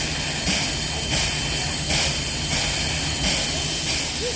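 Steam locomotive 5917, a NSW 59 class, hissing steam in regular bursts about every two-thirds of a second over a steady low rumble.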